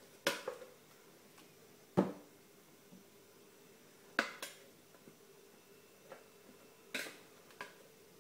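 A spatula knocking against the mixing bowls as sponge batter is scooped out and dropped into a glass pudding bowl: a handful of short, sharp knocks a second or two apart, the loudest about two seconds in.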